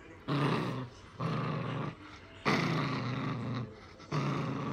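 Maltipoo puppy growling in play while tugging on a rope toy: four growls of about a second each, with short pauses between them.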